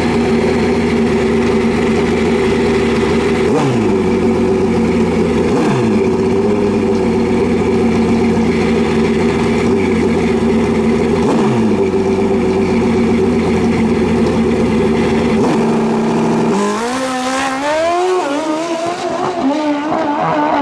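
Drag-racing motorcycle's engine held at steady revs on the start line, dipping briefly three times. About sixteen seconds in it launches, and the pitch climbs in several rising sweeps as it shifts up through the gears.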